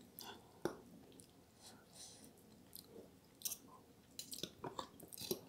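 Close-up chewing of soft, cheesy eggplant parmigiana: quiet wet mouth sounds with scattered small clicks, and one sharp click just under a second in.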